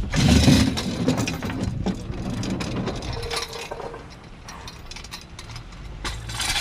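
Rapid mechanical clicking and clattering. It comes in two spells, over about the first three seconds and again near the end, with a quieter stretch between.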